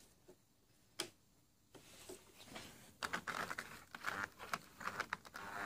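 Model train locomotive trying to run on the track: a single click about a second in, then from about three seconds in irregular clicking and rattling, which the owner thinks might be a problem with its gears.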